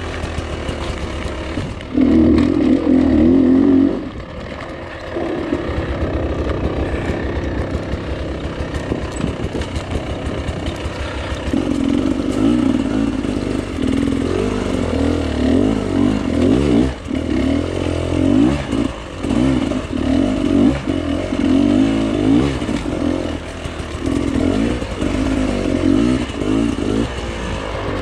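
Two-stroke enduro motorcycle engine (Beta 300RR) running under changing throttle, revving up and dropping back again and again. There is a loud burst of revs about two seconds in, steadier running after it, then frequent rev-ups through the second half.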